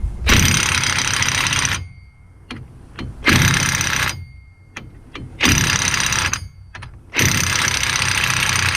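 Impact wrench running in four bursts, the last one the longest, driving the axle nut down to pull the wheel hub onto a side-by-side's axle.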